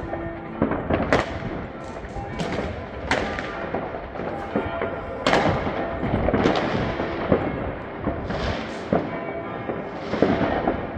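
New Year's Eve fireworks: a dense, continuous crackle of rockets and firecrackers, with loud bangs every second or so.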